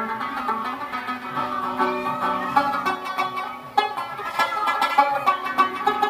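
Rubab being played: quick plucked and strummed notes with some sliding pitches over a bed of ringing tones, in a brief dip just before four seconds in.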